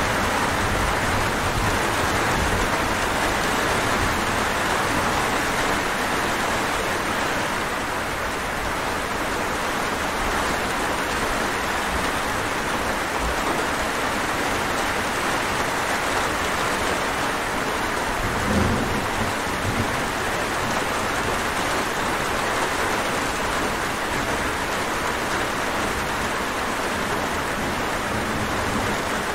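Steady rain, a dense even hiss, with one brief low thump about two-thirds of the way through.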